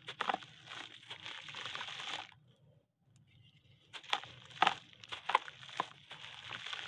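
Sun-dried slab of red dirt crumbling in the hands: gritty crunching with sharp cracks, in two spells with a pause of about a second and a half between.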